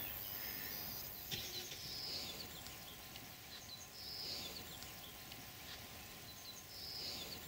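Faint summer meadow ambience: small birds chirping now and then, and a short high buzzy call that comes back three times, every two to three seconds.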